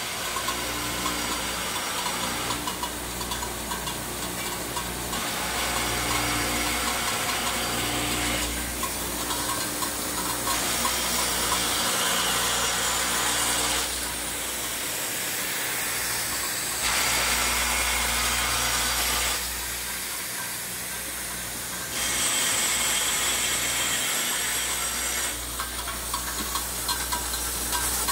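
Automatic screw and foam washer assembly machine running, its vibratory bowl feeder and rotary assembly head giving a steady low hum under a dense clatter of small clicks. The mix jumps in level every few seconds.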